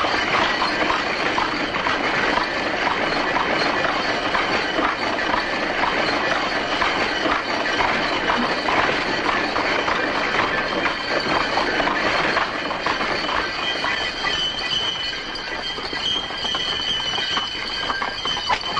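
Horse-drawn carriage clattering along a street: hooves and iron-rimmed wooden wheels rattling in a dense, steady clatter. A steady high squeal joins about two-thirds of the way through.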